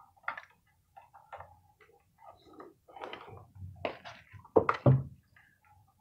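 Small clicks and rustles from hands working a short length of electrical wire at a plastic electrical box, with a few sharper clicks about four to five seconds in.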